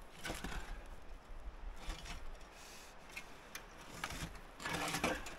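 A heavy old wooden board scraping and knocking against dirt and debris as it is lifted, with a few short knocks and a longer, louder scrape near the end.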